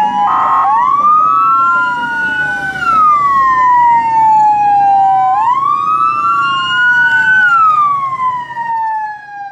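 Two police escort sirens wailing at once, each rising and falling slowly and out of step with the other, with a short horn blast about half a second in. They fade out near the end.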